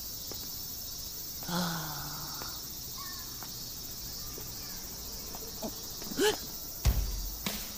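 A steady, high-pitched chorus of summer insects. A short vocal exclamation comes about six seconds in, followed by two dull thumps near the end.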